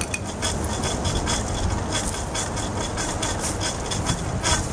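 Window air conditioner running, its compressor and fan giving a steady low hum with irregular rattling ticks over it, just after a run capacitor replacement. The owner says it sounds sick, though it is blowing cold.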